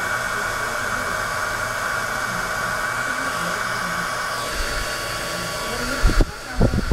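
Handheld hair dryer blowing steadily, its tone shifting about four and a half seconds in. Near the end the dryer noise drops away and a few loud low thumps follow.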